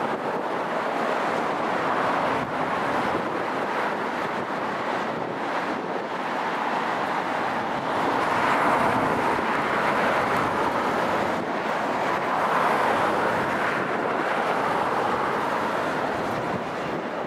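Distant jet airliner engine noise: a steady rushing sound that swells and eases slowly, loudest about halfway through and again a little later.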